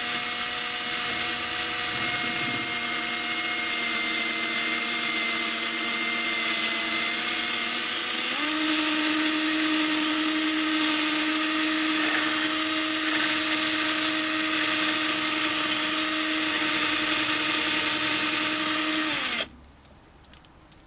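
Cordless battery drill driving a lathe toolpost drill spindle, centre drilling a brass workpiece: a steady motor whine whose pitch steps up about eight seconds in, then winds down and stops near the end.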